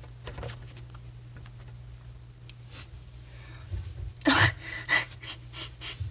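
Sound of a cat clip played back through a screen's speaker: a steady low hum with a few faint clicks, then about four seconds in a run of loud short bursts, roughly three a second.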